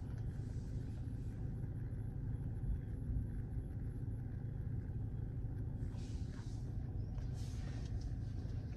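Steady low rumble inside a car's cabin with the car running, with a few faint rustles.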